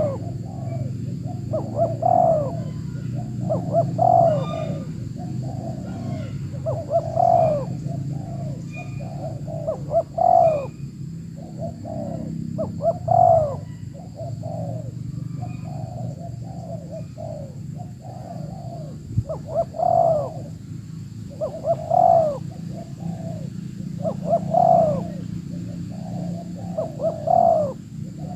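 Spotted doves (tekukur) cooing repeatedly, a loud coo phrase every two to three seconds with softer coos in between.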